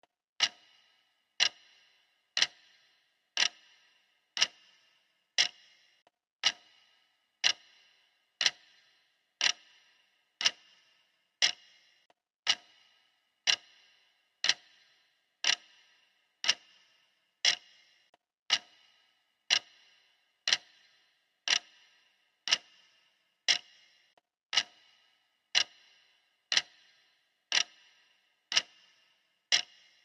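Clock ticking sound effect: one sharp tick a second, evenly spaced, each with a brief ring.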